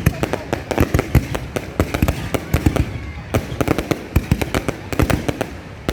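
Fireworks display going off: a rapid, irregular run of sharp bangs and crackles, several a second, thinning out briefly about halfway through.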